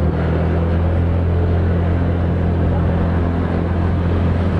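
Motorcycle engine running at a steady, unchanging pitch while riding, with a steady rush of wind and road noise on the microphone.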